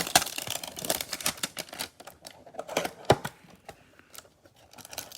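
Trading cards and cardboard packaging being handled: a run of quick clicks, taps and rustles, with one sharper knock about three seconds in.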